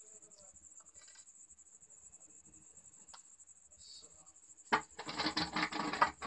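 A faint steady high whine over a quiet room, then about three-quarters of the way in a sudden loud spell of rustling, crackling and scraping as a ribbed plastic pipe or bottle is handled.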